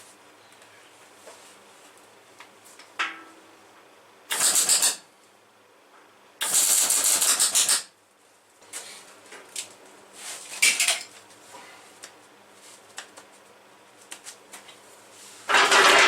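Electric arc welding on rusty sheet steel: short bursts of arc crackle, three main ones (the longest about a second and a half) with a few brief ones between. The weld runs on the rusty scrap sputter.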